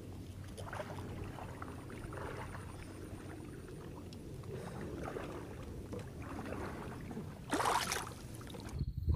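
Small waves lapping, with a low steady wind rumble on the microphone. Near the end comes one brief, loud rush of noise.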